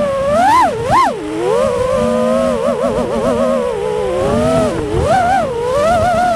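FPV quadcopter's brushless motors and propellers whining, the pitch swooping up and down with the throttle. Two sharp climbs come about half a second and a second in, a fast warble follows around the middle, and more climbs come near the end.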